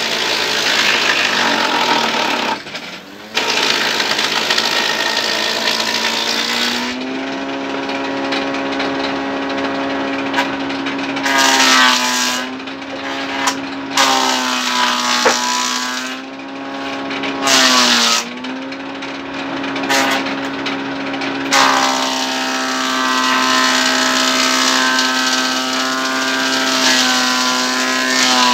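Sawmill band saw running with a steady, many-toned hum that sags briefly in pitch a few times as it takes load, with short, harsh bursts of cutting noise as planks are fed through the blade.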